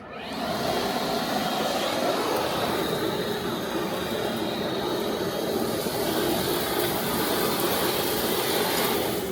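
ECOBULL TAN industrial vacuum's 480-volt three-phase side channel blower switching on, its rushing air noise climbing within the first second and then running steady.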